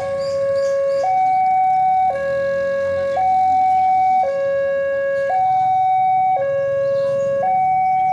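Railway level crossing warning alarm sounding a steady two-tone signal, alternating a lower and a higher tone about once a second, warning that a train is approaching.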